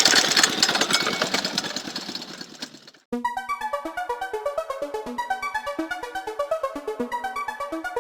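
A machine's engine running fades out over the first three seconds, then electronic background music starts abruptly, with a fast steady pulse under short synthesizer notes.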